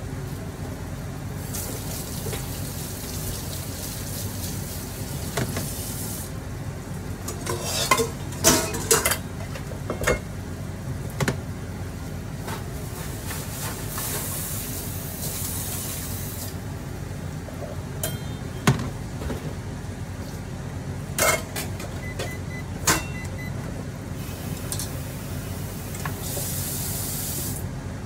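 Kitchen cooking sounds: a steady low hum with several stretches of hissing, and scattered clinks and knocks of utensils and cookware, clustered about a third of the way in and again past the middle.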